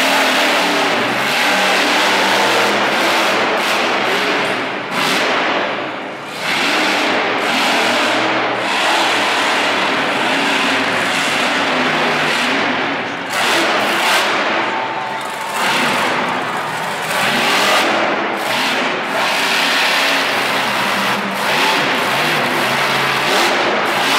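Bigfoot monster truck's engine revving hard again and again during a freestyle run, rising and falling with a few short dips as the driver lifts off between moves.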